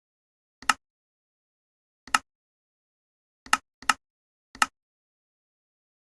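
Five short, sharp clicks or pops, the fourth and fifth close together, with dead silence between them.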